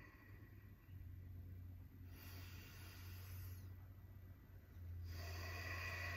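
Slow, deep breaths through the nose during relaxed recovery breathing: one breath about two seconds in lasting about a second and a half, and another starting about five seconds in. A steady low hum runs underneath.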